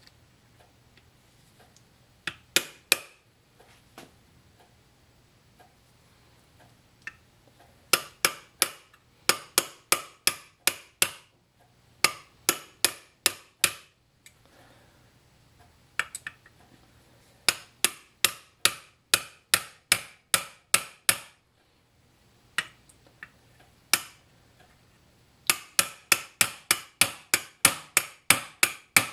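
Hammer tapping on a metal punch in runs of sharp, ringing light blows, about three a second, with pauses between runs: driving a part home while reassembling an antique Hjorth lathe.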